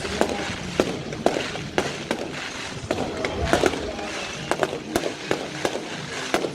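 Fireworks display going off: an irregular series of sharp bangs and crackles, several each second.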